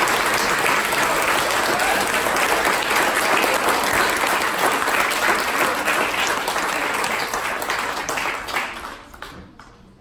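Audience applause, many people clapping together, which dies away over the last second or so.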